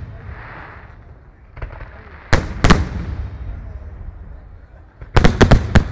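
Aerial firework shells bursting: two loud bangs a few tenths of a second apart about two and a half seconds in, then a quick run of about five bangs near the end, with fainter crackling between.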